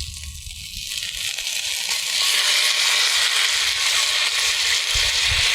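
Pork ribs searing in a hot cast iron pan over a fire, sizzling steadily; the sizzle grows louder about two seconds in.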